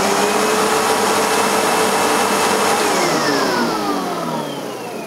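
Sebo-built Ensign SM2 commercial upright vacuum cleaner running at full speed, its motor whining and the brush roll spinning. About three seconds in, the motor winds down: the whine slides steadily lower in pitch and fades.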